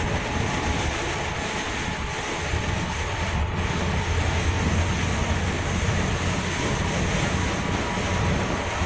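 Inside a large vehicle's cab driving through heavy rain: a steady low engine hum under a constant hiss of rain and tyre spray on the wet road.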